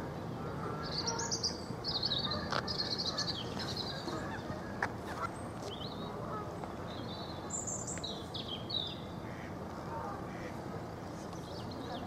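Birds calling: a run of rapid, high chirping notes from about a second in, and another short run around eight seconds in, over a steady background hiss with a few sharp clicks.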